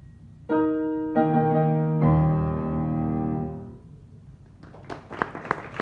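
Grand piano playing the final chords of a piece: three chords about half a second apart, the last one deep and full, left to ring and die away over about two seconds. Audience applause starts about a second after the piano falls silent.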